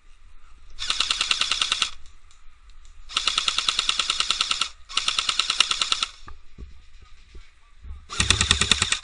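Airsoft gun firing on full auto: four rapid bursts of a second or so each, close by and loud.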